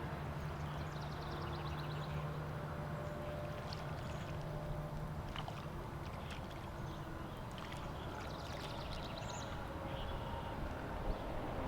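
Steady rushing and gurgling of creek water, under a faint low hum, with rapid high twittering about a second in and again around eight seconds.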